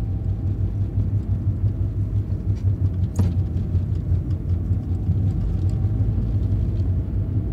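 Car being driven at low speed, heard from inside the cabin: the engine and tyres give a steady low rumble.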